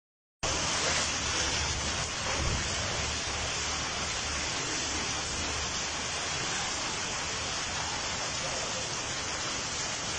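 Heavy rain falling onto flooded pavement and standing water, a steady dense hiss of splashing drops.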